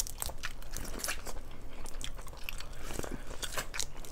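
Close-miked eating sounds: biting and chewing seafood-boil food, a steady run of small wet clicks and crunches.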